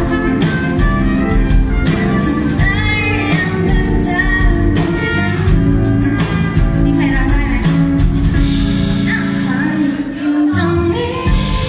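Live band music: a woman singing a pop ballad while playing an acoustic guitar, backed by an electric bass guitar.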